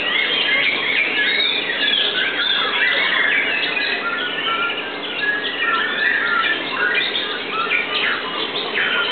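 White-rumped shama (murai batu) singing: a continuous stream of quick, varied whistles and trills with no pauses.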